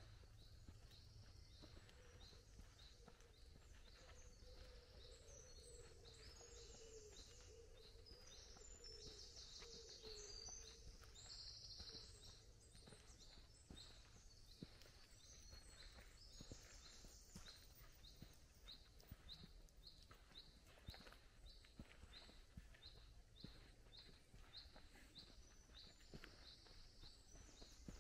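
Faint woodland birdsong: small songbirds singing quick, high phrases, and through the second half one bird repeating a short note about twice a second, over a steady low rumble.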